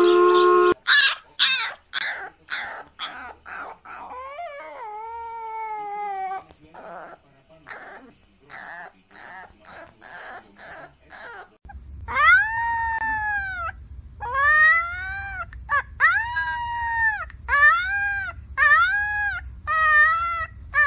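Puppies yipping and whining: a run of quick high yips, a drawn-out falling whine, then a young puppy giving a string of short rising-and-falling howling cries over a low hum.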